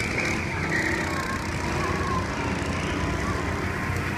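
Go-kart engines running on the circuit at a distance, a thin buzzing whine that drifts up and down in pitch as the karts lap, over a steady background hiss.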